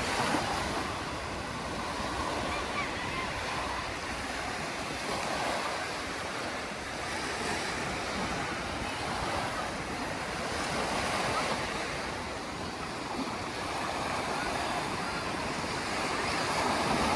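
Gulf of Mexico surf washing onto the beach: a steady rush of breaking waves that swells and fades every five or six seconds.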